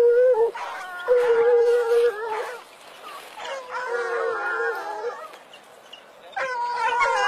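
Hunting hounds giving tongue: long, drawn-out baying cries in spells of a second or two with short gaps. Several voices overlap about four seconds in.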